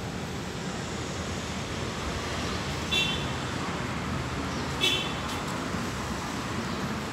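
Steady low rumble of vehicle noise, with two brief high-pitched chirps, one about three seconds in and another about two seconds later.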